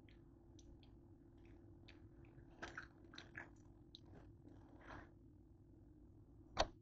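Plastic bag rustling and crinkling as it is opened and handled, in scattered short crackles, then one sharp tap near the end.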